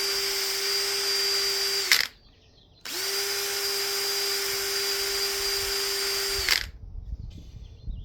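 A handheld power tool motor running at a steady high whine, cutting off about two seconds in, spinning back up about a second later and stopping again near the end, while loose scale is cleaned off corroded starter parts.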